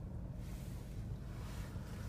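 Low steady hum of a car's interior, with no distinct event; faint light rustling near the end.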